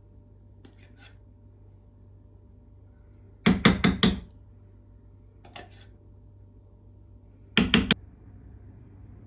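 Kitchen dishes and utensils clattering: a quick run of four sharp knocks about a third of the way in, a faint one after, and three quick knocks near the end, over a low steady hum.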